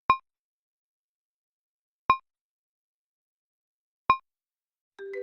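Three short electronic beeps, evenly spaced two seconds apart, with silence between them; near the end, marimba-like music begins.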